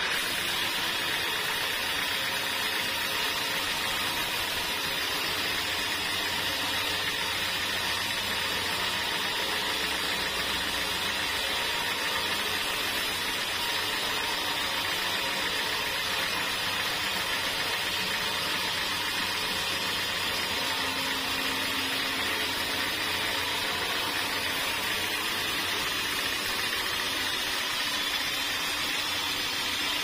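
Band sawmill blade cutting lengthwise through a jackfruit log, a steady even sawing hiss over the hum of the mill's motor.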